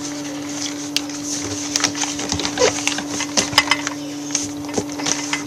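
A sheet of paper being folded and creased by hand: scattered crinkles, taps and rustles, busiest in the middle, over a steady low hum.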